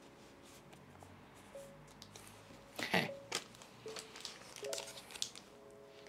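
Crinkling and crackling of a foil Pokémon booster pack wrapper being handled, in scattered short rustles with the loudest crackle about three seconds in. Soft background music notes play underneath.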